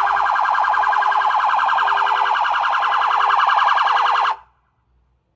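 A state trooper's Dodge Charger patrol car's triggered anti-theft alarm, sounding a loud, rapidly pulsing electronic tone. The tone cuts off suddenly about four seconds in.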